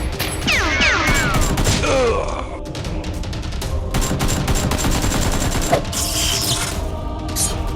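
Rapid bursts of gunfire sound effects, shot after shot in quick runs, with a few sweeping whistle-like tones near the start, over background music.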